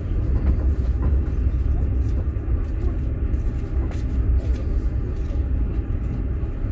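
Passenger train carriage in motion, heard from inside the car: a steady low rumble of wheels on the track, with occasional short knocks and clicks.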